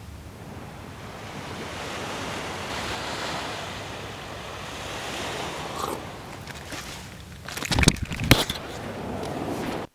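Surf washing onto a sandy beach: a steady wash of waves that swells and then eases off. Near the end comes a short cluster of sharp knocks, the loudest sounds.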